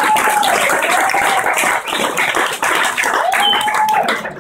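A room of people clapping and applauding, with a few voices calling out over it; the applause dies down near the end.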